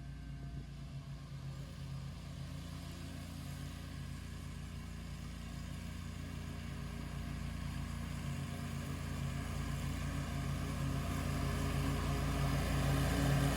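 Scag V-Ride II stand-on commercial mower's engine running steadily, growing gradually louder toward the end.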